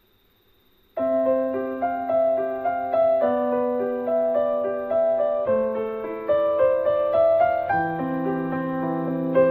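Background piano music: near silence at first, then about a second in a slow piano melody starts abruptly over held bass notes and plays on.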